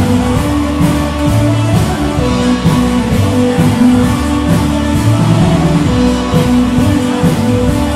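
Music with a steady beat and guitar.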